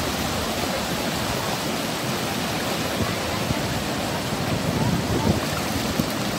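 Ocean surf rushing steadily, with shallow seawater washing and splashing close by, and a few small splashes near the end.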